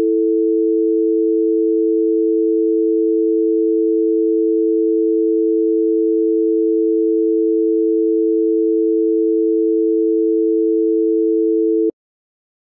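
Bahrain telephone dial tone: a continuous, steady tone of two close low pitches sounding together, which cuts off suddenly near the end.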